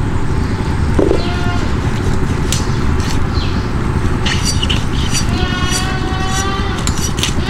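Goat bleating: a short call about a second in and a longer, drawn-out call near the end, over a steady low rumble.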